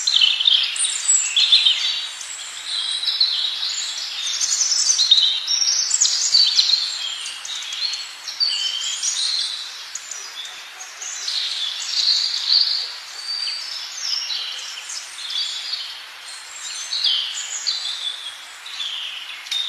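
Baby birds chirping, many short, high, overlapping calls in a continuous chorus that swells and fades in waves.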